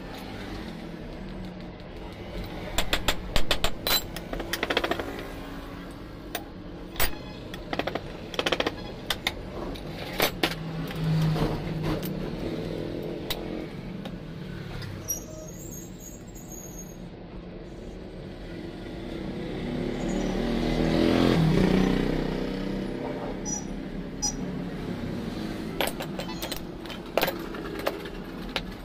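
Scattered sharp metal clinks and knocks of hand tools on a KTM Duke shock absorber clamped in a steel bench vise and on the metal bench, over a steady background hum. About two-thirds of the way through, a road vehicle passes, rising and then fading over several seconds.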